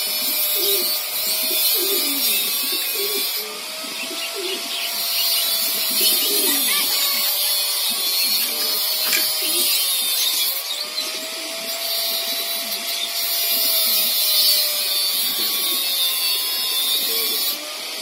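Pigeons cooing in low, repeated phrases, over a loud high hiss that switches on and off in long stretches and a faint steady tone that slowly wavers in pitch.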